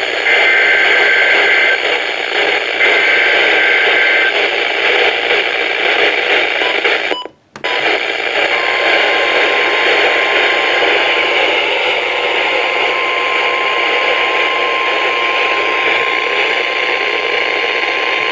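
Weather radio receiving a weak, hissy signal. Two short bursts of the warbling EAS/SAME digital header tones come in the first few seconds. The signal drops out briefly near the middle, then the steady single-pitch NOAA Weather Radio warning alarm tone sounds through the rest, marking the start of a new alert.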